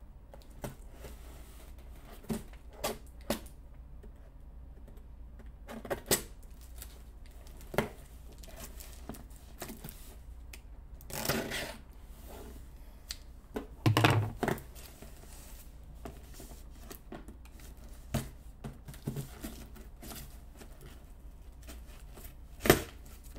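Scissors cutting and scraping along the packing tape of a cardboard box, with scattered clicks and taps of the blades and hands on the box. Two longer tearing scrapes come about 11 and 14 seconds in, and a sharp click just before the end.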